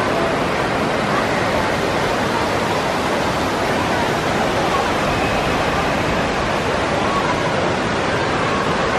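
Steady ambience of a large indoor water park hall: an even hiss like rushing water, with faint distant voices blended into it.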